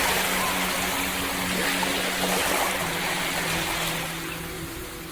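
Ocean waves on a beach: the rush of a broken wave's foam washing up and slowly fading away. Soft held music tones sound under it.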